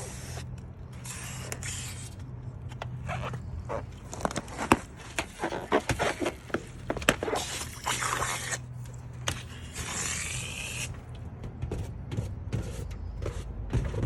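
Rubber balloons being handled and popped: stretches of scraping, rubbing noise with scattered sharp clicks, the loudest a little under five seconds in.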